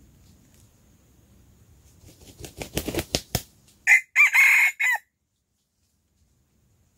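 Rooster beating its wings in a quickening run of strokes, then giving a short crow of about a second, a brief first note and a longer one that drops in pitch at the end.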